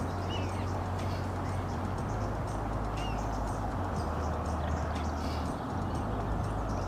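Steady outdoor background rumble with a few short bird chirps over it.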